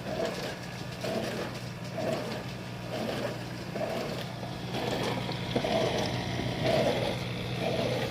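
Portable dishwasher running its first cycle: a steady low hum with a swishing sound that repeats about every second.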